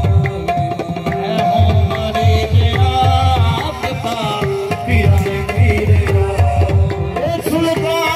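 Live qawwali music: a harmonium plays the melody in held notes over a steady tabla rhythm, with a singer's voice rising over it in places.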